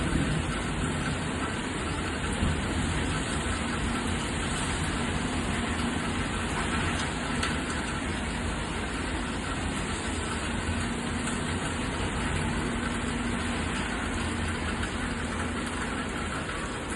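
Steady rain falling, an even continuous hiss, with a faint low hum underneath.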